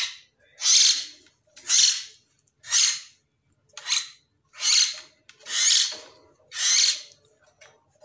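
Hill myna chick giving harsh, hissing begging calls, about one a second, eight in a row, as a hungry nestling gaping to be fed.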